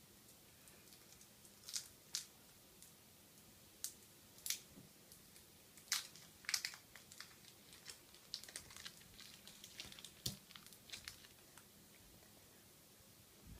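Faint, scattered small clicks, crackles and soft squishes of fingers pressing and shaping a lump of soft Fimo Kids polymer clay on a tabletop, most of them in the middle stretch.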